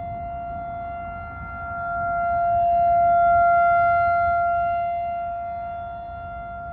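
Outdoor warning siren sounding a steady, unwavering tone for a tornado warning. It swells to its loudest about halfway through, then fades back, with a low rumble underneath.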